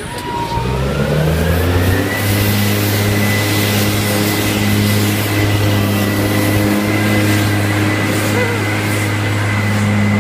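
Six-wheel airport rescue and firefighting truck's diesel engine revving up as the truck pulls away, then running steadily under load with a high steady whine over the drone. It drives while pumping water out of its under-truck nozzles.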